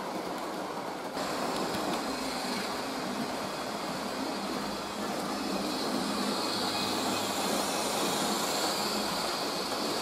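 Model electric express trains, among them an ET 403 set, running on layout track: a steady rolling and running noise. The sound changes about a second in, and a higher hum grows stronger in the second half.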